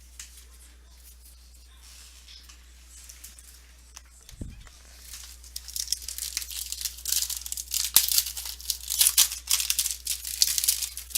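Quiet for about five seconds, then a foil trading-card pack wrapper being torn open and crinkled, with sharp crackles.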